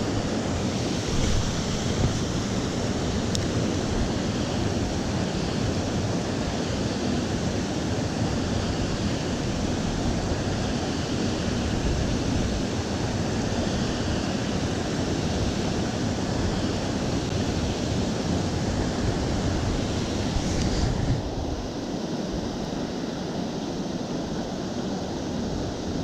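Steady rushing water of a small mountain creek, a constant full hiss. About five seconds before the end it becomes duller and a little quieter.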